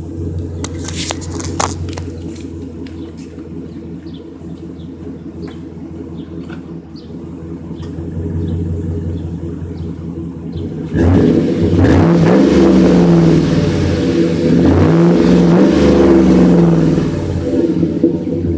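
2011 GMC Sierra's 5.3-litre V8 idling steadily through a Flowmaster Super 40 muffler, then revved a couple of times from about eleven seconds in, the exhaust note rising and falling with each rev before dropping back toward idle. A few knocks near the start as the phone is set down.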